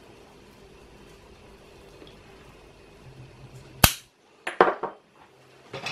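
Faint room tone, then about four seconds in a sharp click followed by a quick run of clinks and knocks, and one more knock near the end: glass spice jars being picked up and set down on the countertop.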